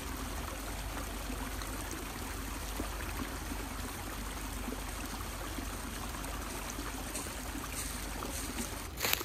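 Small woodland stream trickling steadily over little waterfalls. A brief rustle comes near the end.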